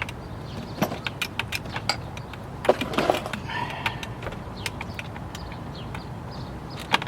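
Scattered clicks and small knocks of hand tools and metal parts being handled, with a busier cluster about three seconds in and a sharp knock near the end.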